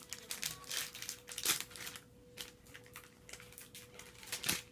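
Yu-Gi-Oh booster pack's foil wrapper crinkling and tearing as it is opened by hand, in a string of irregular rustles with the loudest near the end. A faint steady hum runs underneath.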